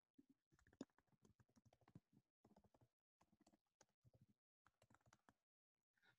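Very faint typing on a computer keyboard: bursts of quick key clicks with short pauses between them, passing through a video call's noise gate.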